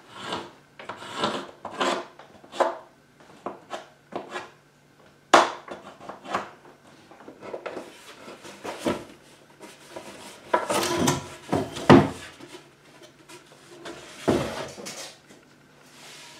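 Plywood panel being handled against the wooden frame of a chicken brooder: irregular knocks, taps and scrapes of wood. The loudest knocks come a little past five seconds in and again around eleven to twelve seconds in.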